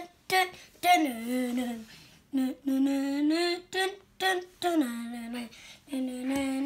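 Voices singing or humming a tune in short phrases, with held notes and brief pauses between them.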